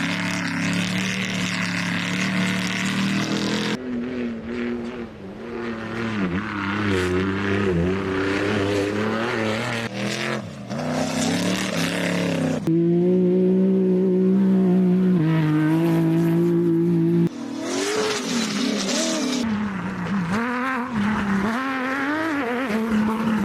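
Off-road race car engines running hard over a series of short cuts, their pitch rising and falling as they accelerate and change gear.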